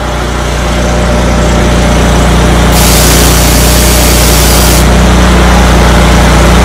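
An engine running steadily and loudly at an even speed, with a hiss that comes in about three seconds in and stops about two seconds later.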